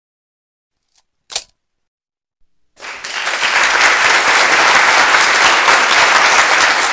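Audience applause that starts about three seconds in and quickly swells to steady, loud clapping. It is preceded by silence broken by two short, sharp clicks.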